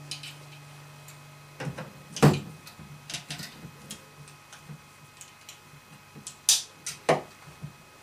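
Handling clicks and knocks as a hand-held scale is hooked onto the handle of a carbon fiber cello case to weigh it: a loud knock about two seconds in, a run of small clicks, and two sharp clicks near the end. A faint low ringing tone dies away in the first second and a half.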